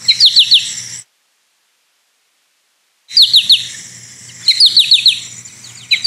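Recorded American goldfinch giving its 'potato chip' (per-chic-o-ree) call: quick runs of three or four short down-slurred notes, repeated several times. A gap of silence falls about a second in.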